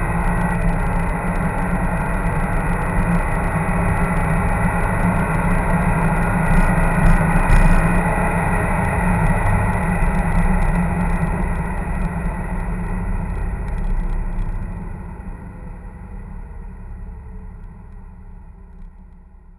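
Cabin sound of a BMW 335i's 3.0-litre turbocharged inline-six pulling hard at high revs at around 150 to 200 km/h, mixed with wind and tyre noise. Partway through the throttle is lifted and the car coasts down, and over the last few seconds the sound dies away steadily.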